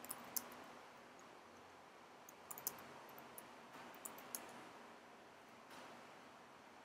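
Computer keyboard keys clicking faintly in three short bursts of typing, a few keystrokes each, over a low steady hiss.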